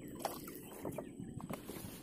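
Faint handling sounds: light clicks and rustles as a wire-mesh keep net is handled on its cord, with a few faint chirps in the background.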